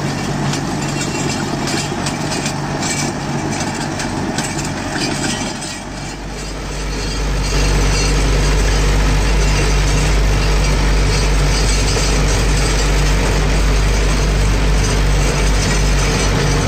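Mahindra Novo 755 DI tractor's diesel engine running steadily while driving a Shaktiman Champion rotavator through the soil, with irregular clattering over the engine noise. About six seconds in the sound changes to a louder, steady low engine drone heard from the driver's seat.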